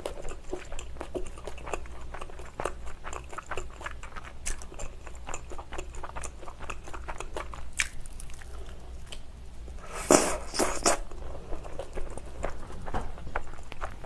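Close-miked chewing and biting of thin-crust pizza, a steady run of small wet crackles and clicks, with a louder crunchy burst about ten seconds in.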